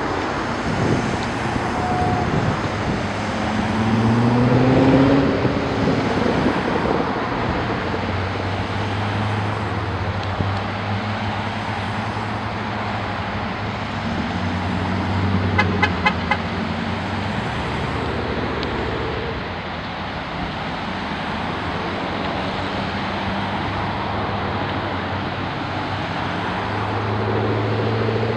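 A slow procession of Corvettes rolling past, their V8 engines rumbling over tyre noise on the pavement, with one engine revving up to a louder, rising note about four seconds in. Just past halfway there is a short burst of quick high chirps.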